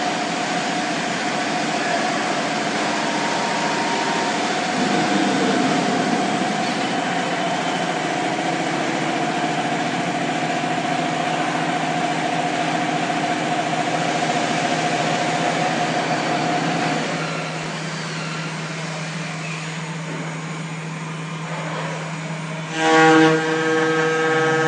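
Spindle of a 5-axis CNC router running as it machines a round wooden workpiece, a steady whine over a broad cutting noise. The whine stops about two-thirds of the way through and the noise eases a little. Near the end there is a brief loud burst, then a steady, buzzing pitched tone starts.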